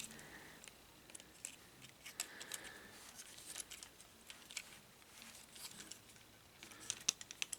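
Faint, scattered clicks and taps of a plastic Transformers action figure's parts being rotated and adjusted by hand, with a few sharper clicks near the end.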